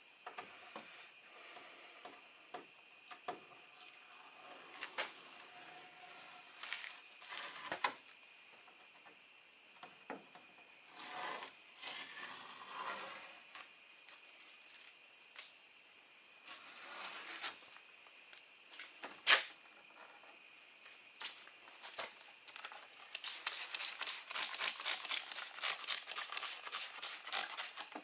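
Crickets chirring steadily, with scattered brief rubbing and handling noises. Near the end comes a quick run of rubbing strokes, several a second.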